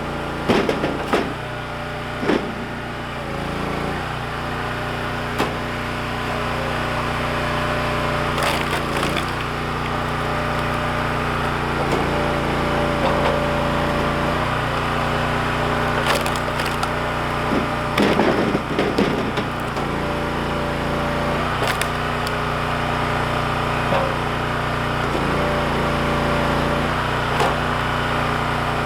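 Engine-powered log splitter running steadily, its note shifting every few seconds as it takes load, while cherry logs are split: the wood cracks and splinters sharply about four times.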